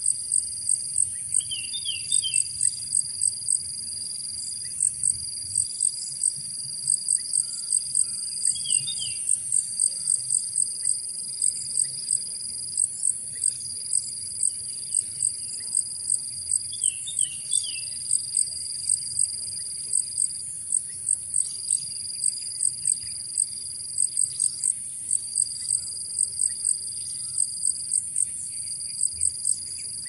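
Insects chirping in a rapid, even rhythm of very high pulses, over a steady high whine. Short bird calls of three or four quick notes come in three times.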